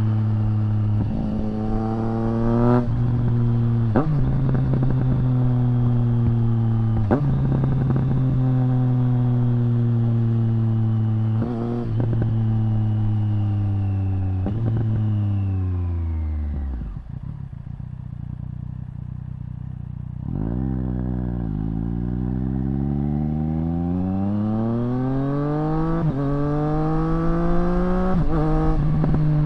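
2024 Triumph Street Triple RS's 765 cc inline-three running through a Zard titanium exhaust under way: it pulls up through several quick upshifts, each with a brief break in the note. About halfway through the throttle is rolled off, so the pitch falls and the exhaust goes quieter for a few seconds. Then it accelerates hard again, the pitch climbing through more upshifts.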